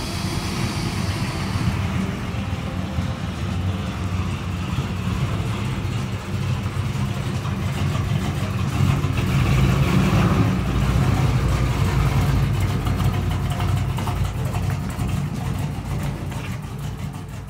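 1967 Chevrolet C10 pickup's engine running through its Black Widow exhaust, a steady low rumble that swells with revving about halfway through.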